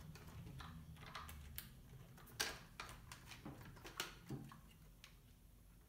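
Faint scattered clicks and light knocks of a plastic 1/12 RC buggy being picked up and turned over by hand, its parts and wheels tapping; the loudest knocks come about two and a half and four seconds in.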